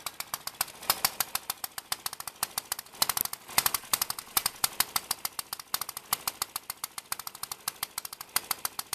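Homemade 1936 Popular Mechanics 'Midget' single-cylinder four-stroke model engine running on gasoline: a rapid, even string of sharp firing pops, about ten a second.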